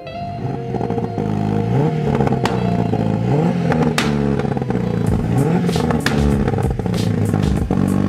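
Renault 5 Turbo's mid-mounted turbocharged four-cylinder engine being revved repeatedly while stationary, the pitch rising and falling with each blip, with sharp exhaust pops and crackles that come more often in the second half.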